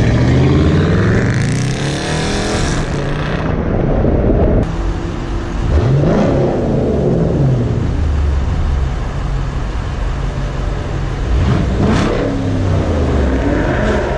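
Car engine revving: the pitch climbs over the first couple of seconds, then two short blips of the throttle, about six and twelve seconds in, each rise and fall.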